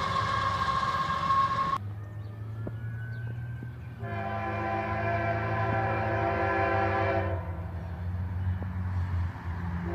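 Diesel freight locomotive's multi-chime air horn sounding: one blast cuts off about two seconds in, a second long blast follows about two seconds later, and a third begins at the end. A steady low rumble from the train runs beneath.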